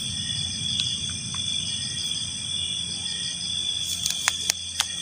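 A night chorus of crickets or similar insects trilling steadily at a high pitch, with a faster pulsing trill above it. Several sharp clicks come near the end.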